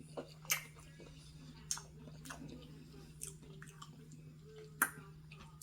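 Close-up mouth sounds of someone chewing okra: wet smacks and clicks at irregular intervals, about one a second, over a faint steady low hum.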